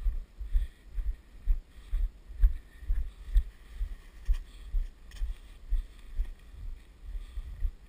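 A skier's strides on snow: a dull thud about twice a second as each step and pole plant jolts the body-worn camera, with a light crunch of snow.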